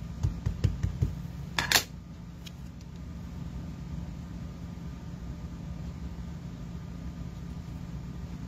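Acrylic stamp block handled on a work surface: a few soft low knocks and one sharp click within the first two seconds, then a steady low hum.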